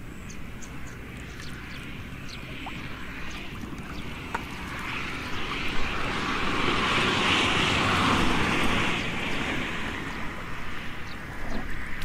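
Muddy water splashing and sloshing as a crowd of catfish thrash in a shallow puddle, with small drips and plops; the splashing swells to its loudest about two-thirds of the way through.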